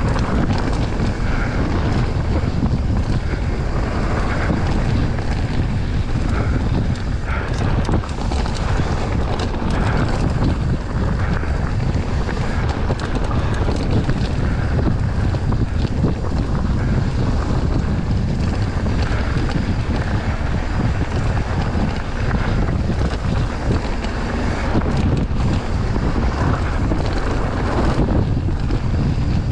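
Wind buffeting the microphone of a rider's camera on a mountain bike descending a rocky dirt trail, with the tyres running over loose gravel and the bike rattling.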